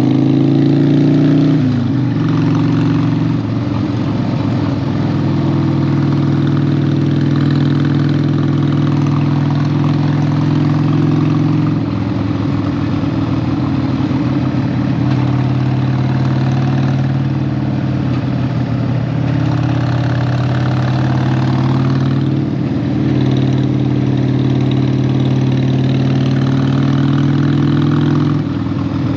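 Harley-Davidson 1200 V-twin motorcycle engine running under way at fairly steady revs. Its note drops and picks up again a few times as the rider changes speed or gear.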